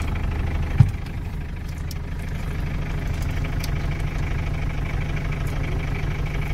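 Vehicle engine idling steadily, heard from inside the cab, with one sharp click about a second in as the door is opened.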